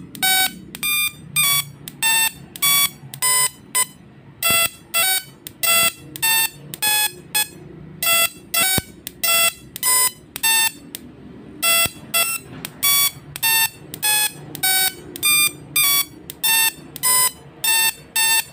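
Small musical Tesla coil playing a melody through its spark discharge: a run of short, buzzy notes, about one and a half a second, each at a different pitch, with a few brief pauses.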